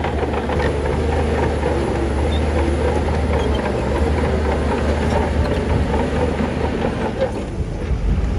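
Heavy diesel construction machinery running steadily, with a low rumble and a metallic clanking rattle.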